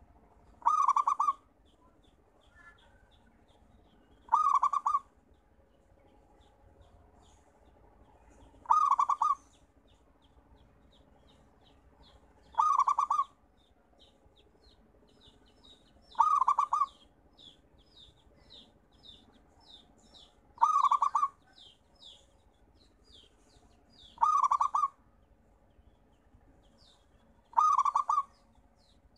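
Zebra dove (perkutut) singing its cooing song: eight short coos spaced about every four seconds. Faint, quick high chirps from another bird sound between the coos.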